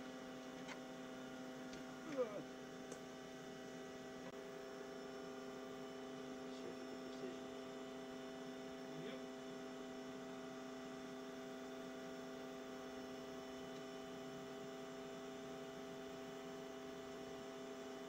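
Steady machine hum made of several level tones, with a brief louder moment about two seconds in.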